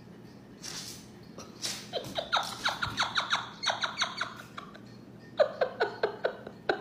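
Two quick runs of short, sharp squeaks, each squeak dropping in pitch, about five to six a second.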